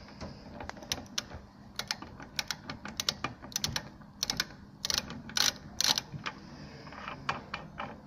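Ratchet and socket clicking irregularly as the lock-shield cartridge is unscrewed from a brass radiator valve body, with a cluster of louder clicks about five to six seconds in.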